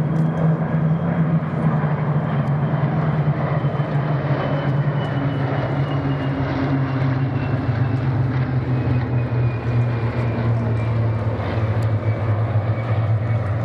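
Piston-engined propeller warbird flying past, its engine drone steady and loud, with the pitch sliding slowly down as it passes.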